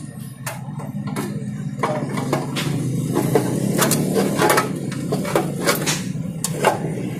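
Irregular metal knocks, clicks and clatter from a mini rice mill's blower housing and pipe being pushed and fitted by hand into its steel frame, over a steady low hum.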